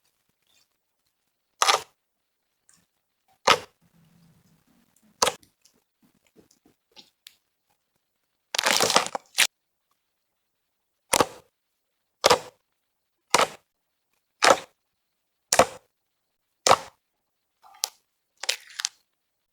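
Fluffy slime being pressed and poked, giving sharp popping clicks as air pockets burst. A few pops come far apart at first, then a short crackling run near the middle, then a steady series of pops about once a second.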